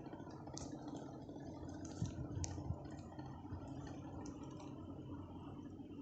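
Ceiling fan running with a steady low motor hum, with a few faint clicks and a brief cluster of low knocks about two seconds in.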